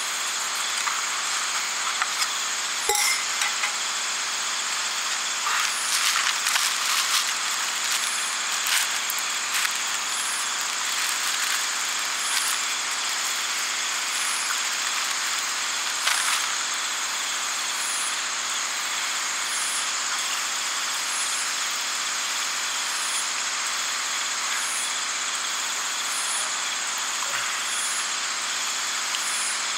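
Steady high-pitched chorus of night insects, with a softer high pulse repeating a little under every two seconds. Plastic bag crinkling in the hands about six to ten seconds in, with a few sharp clicks.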